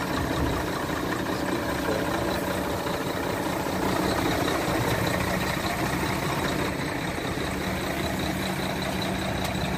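Six-cylinder diesel engine of a Mercedes-Benz Actros 1846 truck idling steadily.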